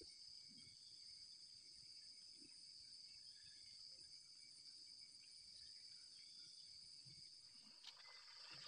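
Faint, steady high-pitched chorus of rainforest insects, a constant drone without a break.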